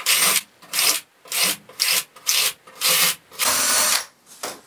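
Cordless drill running in about seven short spurts, with one longer run about three and a half seconds in, as a bit matched to the hole size is pushed into hole after hole of a perforated bentwood seat. The bit is not cutting wood, only clearing packed-in dirt out of each hole.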